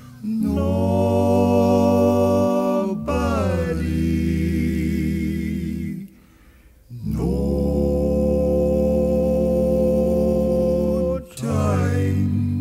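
Vocal music: several voices singing long held chords in unhurried phrases, with short breaks between them about 3, 6 and 11 seconds in.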